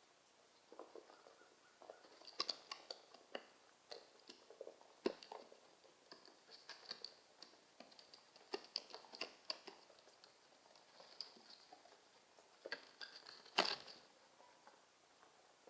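Birds pecking at food on a hard surface: a scatter of light, irregular taps and clicks, with a louder cluster of taps near the end.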